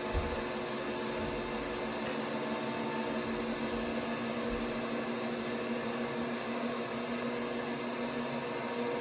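LG WT5680HVA top-load washing machine running mid-cycle: its direct-drive motor gives a steady hum with a few held tones over an even whir, and there is a brief low thump just after the start.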